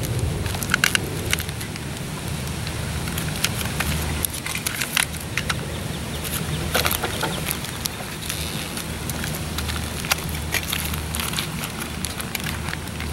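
Small plastic-wrapped packets crinkling and light metal clicks as the items of a tin survival kit are handled and packed back into the small metal tin, in scattered bunches of taps and rustles.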